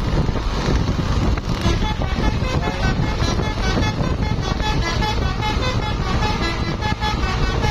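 Tour bus's multi-tone 'telolet' horn playing a quick melody of short toots at several pitches, over a steady low rumble.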